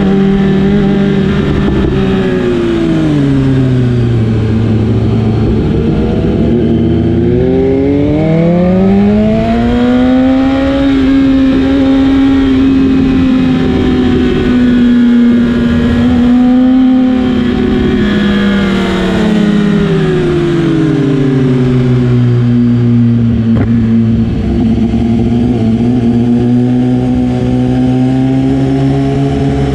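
BMW S1000RR inline-four engine running under way. Its pitch falls about three seconds in, climbs back up between about seven and ten seconds and holds high, then falls again around twenty seconds in and stays low until rising slightly near the end.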